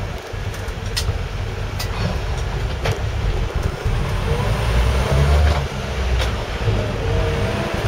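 Land Rover Series 3 heard from inside the cab on the move, its engine and freshly rebuilt gearbox running with a steady low rumble and a faint whine that rises and falls. Several sharp clicks or rattles come through at irregular moments.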